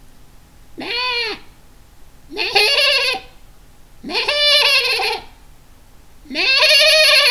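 A person imitating a goat: four bleats, each rising then falling in pitch with a quaver. The first is short and quieter, and the next three are longer and louder.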